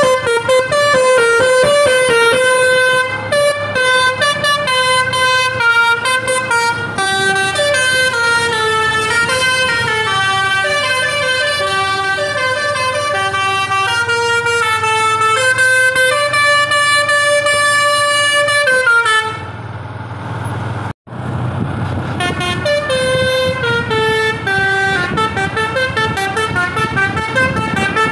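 Basuri V3 telolet horn with top-mounted trumpets on a bus, playing a tune of quick stepped notes. The tune breaks off about two-thirds through, leaving a low rumble for a couple of seconds, then starts again.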